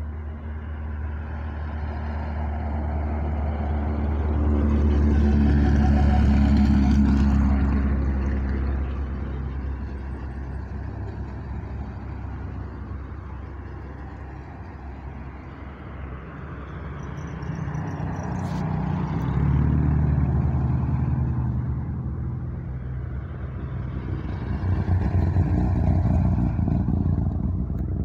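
Hill-climb race cars driving past one after another in a return convoy down the course after their runs. Each engine swells as it approaches and fades as it goes away. The loudest passes come about a quarter of the way in, about two-thirds in and near the end.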